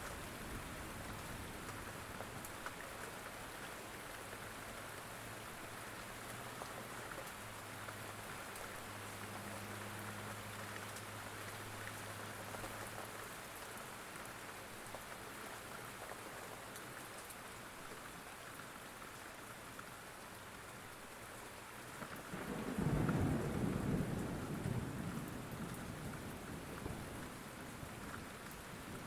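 Steady rain falling, with a low rumble of thunder that swells about three-quarters of the way through, the loudest moment, and then fades away over a few seconds.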